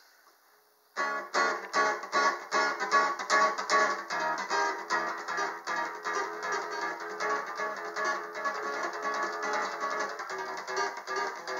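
Acoustic guitar playing a song's instrumental intro, strummed and picked in a steady rhythm, starting about a second in.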